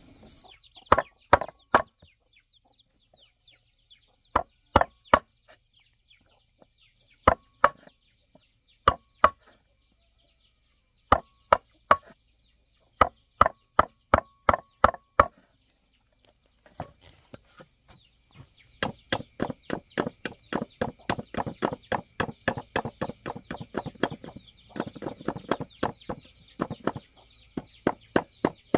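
Sharp knocks, first in short groups of two to four with pauses between, then from about two-thirds of the way in a fast steady run of about four strokes a second, with faint bird chirps behind.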